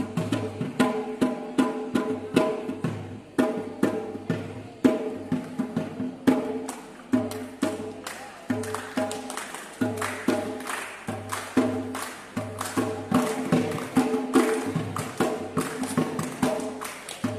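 Assamese dhol drum played in a quick, steady rhythm, with many sharp hand claps and a group of voices singing along in unison.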